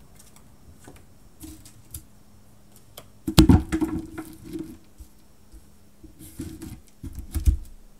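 A deck of oracle cards being handled on a table: rapid papery clicking of the cards being shuffled, with thumps against the tabletop, loudest in a burst about three seconds in and again in two shorter bursts near the end.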